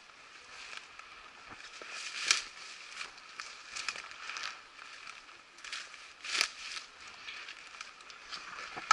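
Dry twigs, dead leaves and brambles crackling and rustling as someone pushes on foot through dense undergrowth, in irregular snaps and rustles, the loudest about a third of the way in and again about two-thirds in.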